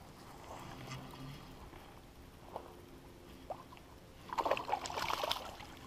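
A hooked smallmouth bass splashing at the water's surface for about a second, about four seconds in, as it is reeled in toward the bank. Before that, only a few faint ticks.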